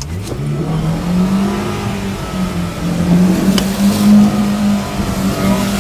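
Vehicle engine revving up sharply in the first second and then held at high revs, pushing the vehicle through deep river floodwater.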